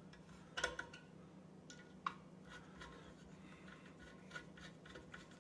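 Faint irregular clicks and scrapes of a Phillips screwdriver turning screws into a metal bowl clamping plate on a stand mixer base, over a low steady hum.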